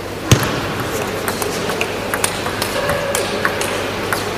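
Table tennis rally: the celluloid ball clicking off the bats and the table in quick succession, the loudest a sharp crack about a third of a second in.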